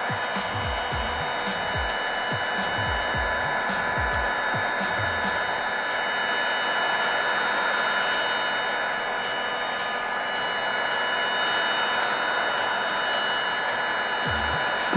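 Cordless DeWalt heat gun running steadily: an even rush of blown air with a faint steady whine from its fan, and some low rumbling in the first few seconds.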